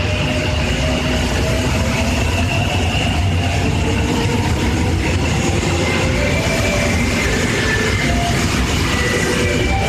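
Korail Line 3 electric multiple unit pulling away from a station platform, its Mitsubishi GTO VVVF inverter whining in several tones that shift upward in steps as the train accelerates, over the low rumble of the wheels on the rails.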